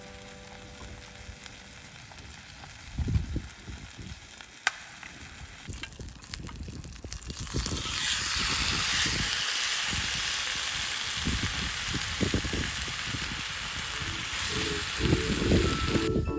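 Food sizzling in a hot pan, preceded by a few knocks from handling the cookware. The steady sizzle starts about halfway through.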